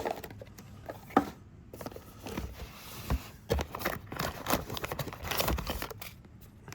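Packaging being handled while a box is rummaged through: irregular rustling and crinkling with a few small knocks and scrapes, busiest in the second half.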